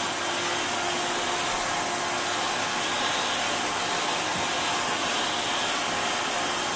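Vintage Hoover vacuum cleaner running steadily with a high whine, its hard floor brush being used on a laminate floor. The motor has just spun up, and its commutator carries a thick black layer of carbon.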